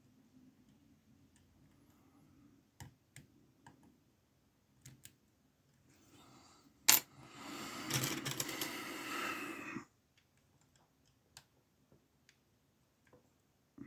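Faint clicks of small lock picks working a tiny padlock, then a sharp metal clack about seven seconds in followed by nearly three seconds of metallic rattling that stops abruptly, then a few more light clicks.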